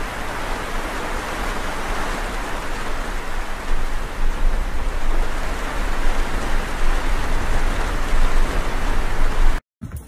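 Steady rain falling, an even hiss that cuts off suddenly near the end.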